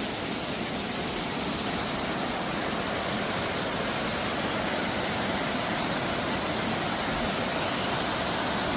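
Waterfall rushing steadily, an even roar of falling water with no changes.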